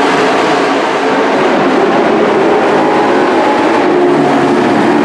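Several dirt-track race trucks running their engines hard around the oval, a loud, steady blend of overlapping engine notes.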